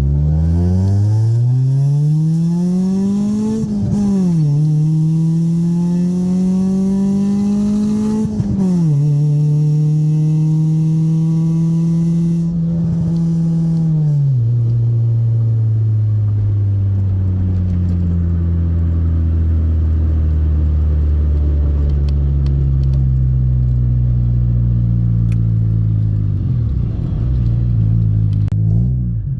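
Honda EK Civic's four-cylinder engine through its aftermarket header exhaust under hard acceleration. The revs climb and drop sharply at an upshift about four seconds in, climb again and drop at a second upshift about eight seconds in, then hold steady. Around fourteen seconds in they ease off into a lower, steady drone that slowly falls.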